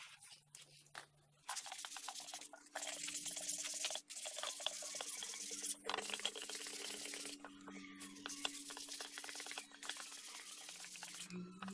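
Wet scrubbing of a motorbike front wheel hub with a metal scouring pad: quick rasping strokes with brief pauses between bouts. A steady low hum runs underneath.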